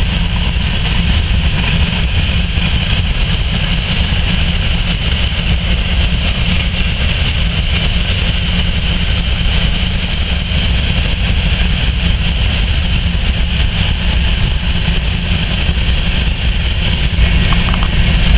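Freight train of BNSF covered grain hopper cars rolling past, the wheels on the rails making a steady rumble.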